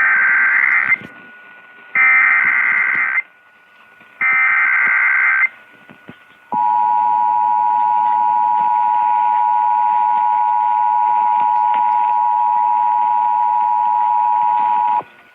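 Emergency Alert System tones on the radio: three SAME header data bursts of about a second each, about a second apart, then the steady two-tone attention signal (853 and 960 Hz) for about eight seconds, which cuts off suddenly near the end. They open a severe thunderstorm warning activation.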